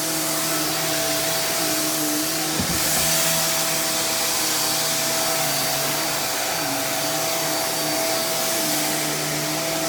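Hoover React Professional Pet Plus UH73220 upright vacuum running steadily, its suction motor humming under a loud airflow hiss. The hum wavers slightly in pitch as the vacuum is pushed around, with a brief knock about two and a half seconds in.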